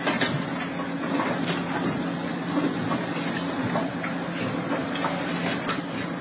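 Heavy diesel machinery, an excavator and dump trucks, running with a steady low hum, with scattered clicks and knocks over it.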